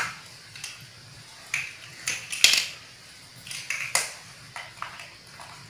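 Plastic interlocking toy blocks being handled, clicking against each other and tapping on a tiled floor: a series of short, sharp, irregular clicks, the loudest about two and a half seconds in.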